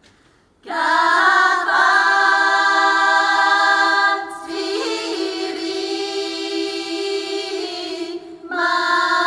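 Women's vocal ensemble singing a Bulgarian folk song a cappella, starting about half a second in. Long held chords sit over a steady low note, in three phrases with short breaks between them.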